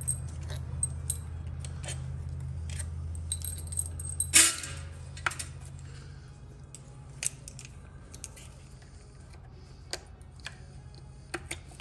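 Small metal parts and tools clinking and rattling as bolts and pieces are handled on a transmission being taken apart, with one louder metal clank about four seconds in. A low steady hum underneath stops at the same moment.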